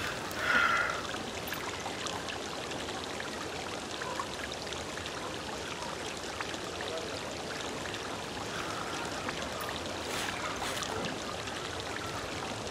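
Steady trickle and splash of running water, like a courtyard fountain, with a brief higher sound about half a second in.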